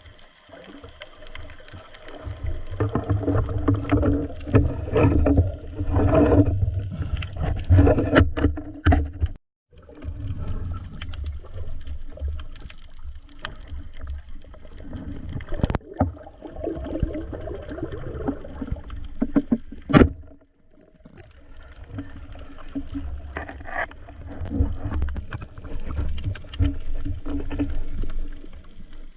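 Boat on the water: an uneven low rumble with sloshing and gurgling water, broken by a few sharp knocks and two brief cuts to silence.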